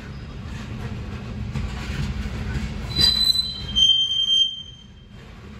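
Loaded Union Pacific ethanol tank cars rolling past with a steady low rumble, then steel wheels squealing in high, steady, piercing tones from about three seconds in, the loudest part, fading out about two seconds later.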